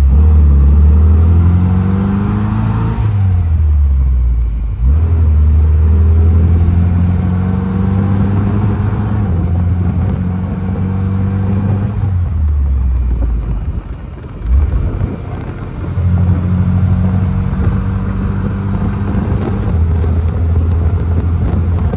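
Triumph Spitfire's four-cylinder engine pulling on a road test, its note climbing and then dropping at each of a few gear changes, with a brief lull and a single knock about two-thirds of the way through.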